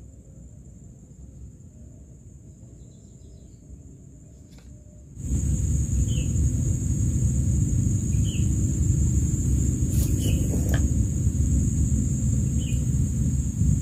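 Outdoor swamp-side ambience: a steady high insect drone with a short bird-like chirp about every two seconds. About five seconds in, a loud low rumble of wind on the microphone sets in, with a brief knock a little after ten seconds.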